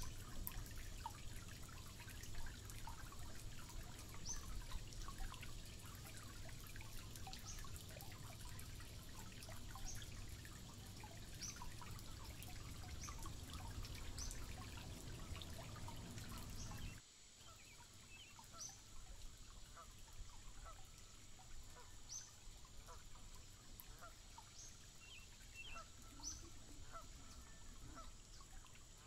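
Birds calling: a short, high, falling call repeated every second or two over a faint low rumble. The rumble stops abruptly a little past halfway.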